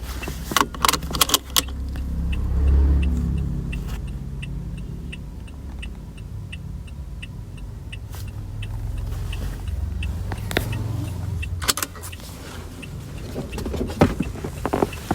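Toyota Aqua's turn-signal indicator ticking steadily, about two to three ticks a second, over the low rumble of the car's cabin. A cluster of clicks and rattles comes near the start, and more come near the end.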